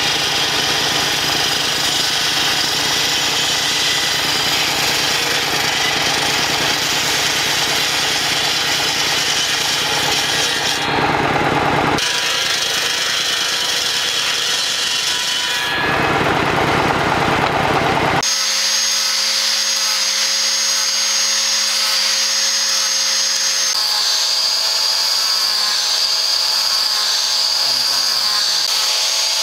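A table saw cutting a red wooden axe-handle blank, with the sound changing abruptly a few times. About two-thirds through, it gives way to an angle grinder with a sanding disc running with a steady whine as it shapes the wooden handle.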